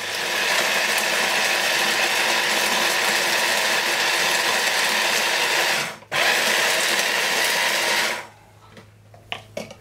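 Small electric blender grinding whole spices (coriander seed, cumin, black pepper, cloves) into a rub: the motor runs about six seconds, stops for an instant, runs again for about two seconds, then cuts off. It is a second grind to break up coriander seeds still left whole.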